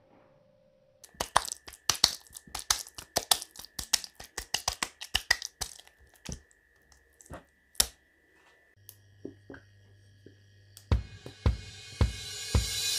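A run of irregular sharp clicks and pops with a faint steady tone behind them, starting about a second in and thinning out after about eight seconds. Music fades in near the end.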